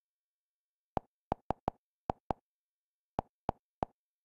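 Kodi menu navigation sound: a short, identical soft click for each step as the menu scrolls, nine in all, in quick groups of four, two and three, with dead silence between.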